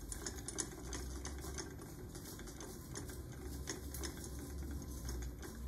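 Small electric motor spinning a colour disc: a low hum with faint, uneven clicking, heard as a film soundtrack played back through a speaker.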